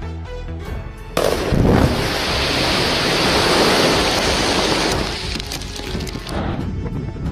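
Electronic music with a steady beat, cut about a second in by the sudden loud rushing noise of a rock blast with flying debris, which lasts about four seconds and fades. The beat returns near the end.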